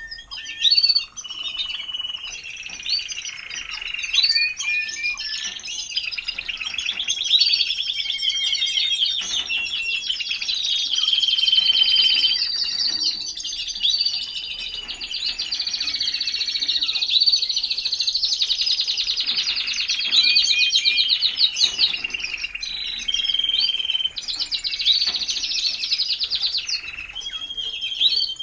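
Timbrado español canaries singing together: rapid trills and chirps overlapping without pause.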